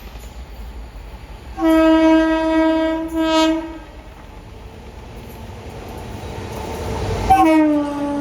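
Locomotive horn of the Mumbai Tejas Rajdhani Express sounding as the train passes slowly: a long blast about a second and a half in, broken briefly into a shorter second blast. The train's running noise then grows louder, and a new horn blast begins near the end, dipping slightly in pitch as it starts.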